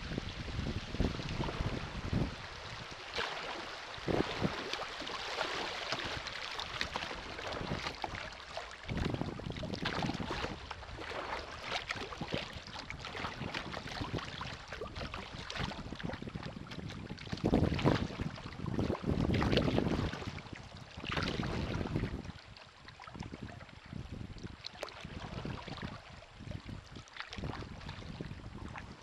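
Kayak paddle strokes splashing and dripping in river water, coming in an uneven run, with low rumbles of wind buffeting the microphone.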